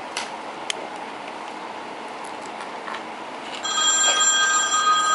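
A couple of light clicks, then about three and a half seconds in a mobile phone starts ringing with a steady electronic ring of several tones at once.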